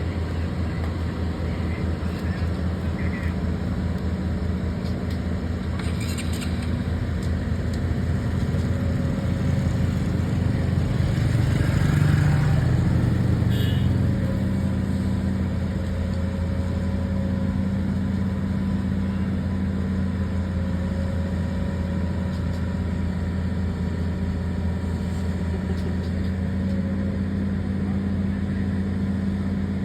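Excavator's diesel engine running steadily, swelling louder and higher for a few seconds around the middle before settling back.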